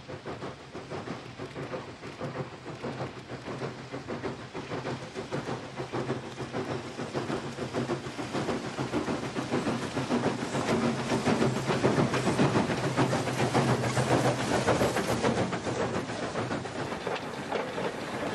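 Steam locomotive hauling a freight train, its exhaust chuffing in a quick, even beat. The sound grows louder as the engine approaches and passes close by, loudest about two-thirds of the way through, then eases off.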